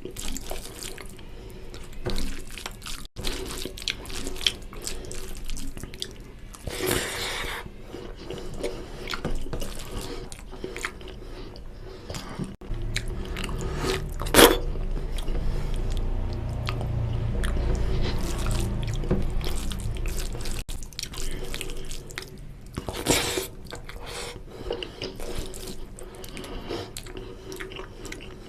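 Close-up eating of oily mutton fat curry with rice: chewing and biting with irregular small clicks and wet squelches, plus a few louder bursts.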